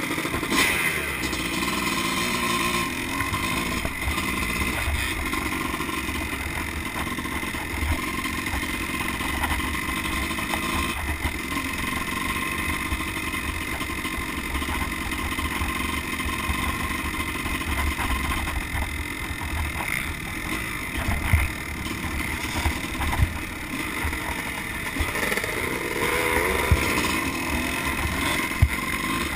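Dirt bike's engine running as it is ridden, heard from on the bike itself, with a few sharp knocks in the last several seconds.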